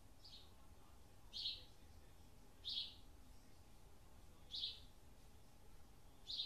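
A bird chirping: five short, high chirps, one every second and a half or so, the first faint, over a faint low room hum.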